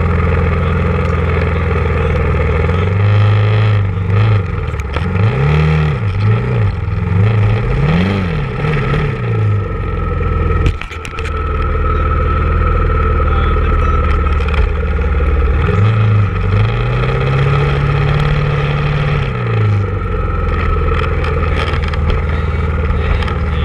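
Honda ATV engine running, blipped up and down in several quick revs in the first half and then held up in one longer rev about two-thirds of the way through before settling back to idle.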